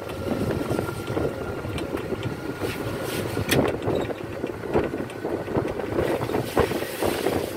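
Wind buffeting the microphone over the rumble of an electric shuttle cart riding along a pier, with a few knocks. A faint steady whine runs through the first three seconds.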